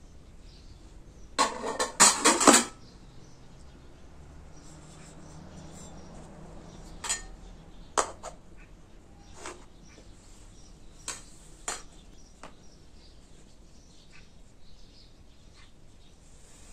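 Metal cooking pot and round steel serving tray clanking and scraping as the rice is turned out of the pot. There is a loud cluster of clanks about a second and a half in, then a few single clinks spread through the rest.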